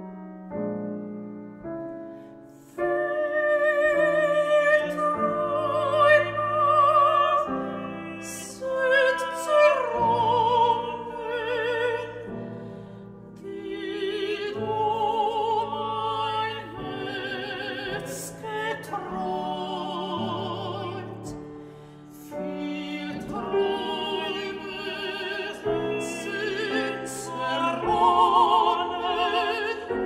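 Soprano and mezzo-soprano singing a classical art-song duet with vibrato, accompanied by piano; the voices come in about three seconds in after a short piano passage.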